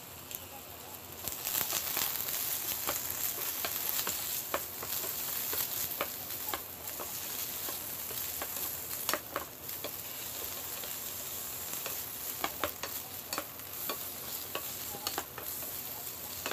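Konnyaku, taro, daikon and burdock strips sizzling in a hot frying pan while a wooden spatula stirs them, with frequent knocks and scrapes of the spatula and food against the pan. The sizzle gets louder about a second in. This is the stir-frying stage of tonjiru, before any liquid goes in.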